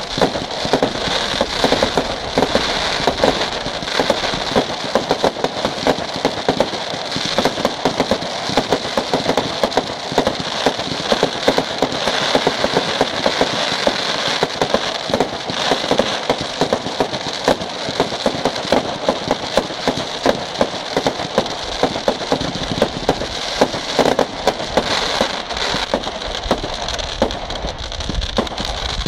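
Firework display barrage: many fireworks launching and bursting in rapid succession, making a dense, continuous crackling with frequent sharper bangs.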